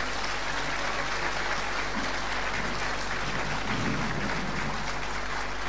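Audience applauding steadily: a large crowd clapping in an even wash of sound.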